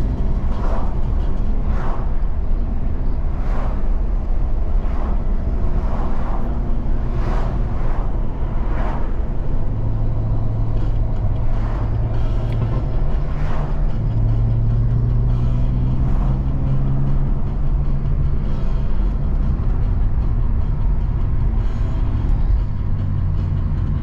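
Inside the cabin of a moving BMW E46 325i: its straight-six engine drones steadily over road and tyre noise, the drone shifting in pitch a couple of times midway. A string of short knocks is heard through the first half.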